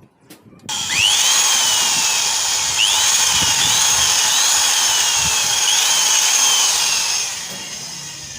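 Electric hand drill boring out a stripped bolt hole in a motorcycle cylinder head, enlarging it for an 8×1.25 mm tap and thread insert. The drill starts up about a second in and runs steadily. Its whine sags and picks up again several times as the bit bites, then it winds down near the end.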